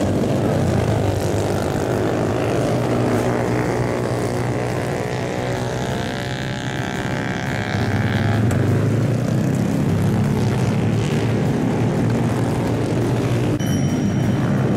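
Honda Grom mini-bike engines (125 cc air-cooled singles) running. About halfway through, one rises slowly in pitch as it accelerates and then breaks off suddenly.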